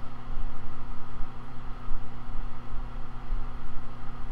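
A steady low hum, even throughout, with no distinct clicks or knocks.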